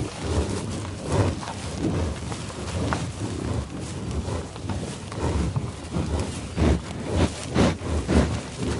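A buffalo (American bison) sniffing and eating in tall grass: irregular breathy puffs and noisy rustling, with several louder puffs near the end.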